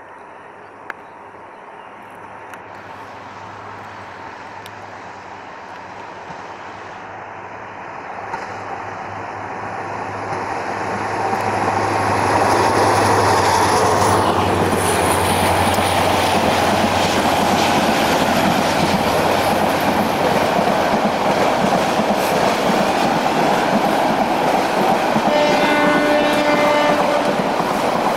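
EMD GT18L-2 diesel locomotive and its train approaching and passing. The engine's drone grows steadily louder over about twelve seconds, then stays loud with the rumble of the coaches rolling by on the rails. Near the end the horn sounds one blast of about two seconds.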